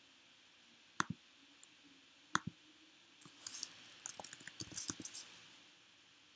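Two sharp clicks about a second and a half apart, then a quick run of keystrokes on a computer keyboard for about two seconds.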